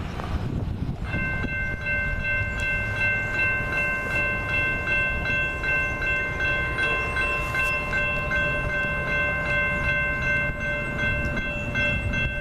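Railroad grade-crossing bell ringing in rapid, even strikes, starting about a second in, over a steady low rumble.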